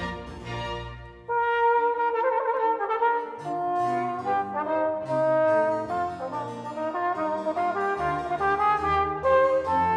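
Chamber string orchestra playing, then about a second in an alto trombone enters loudly with its solo melody of sustained notes, the strings joining again beneath it a couple of seconds later.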